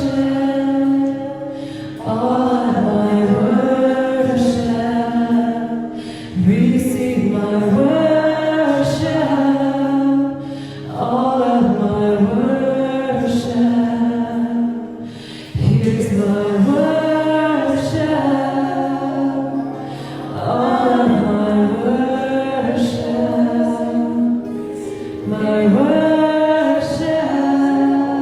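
Worship music: voices singing in phrases of a few seconds each over a sustained held chord.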